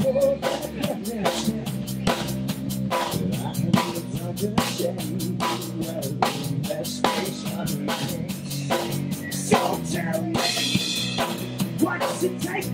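Rock band playing live: electric guitars and bass over a drum kit keeping a steady beat, with a cymbal crash about ten and a half seconds in.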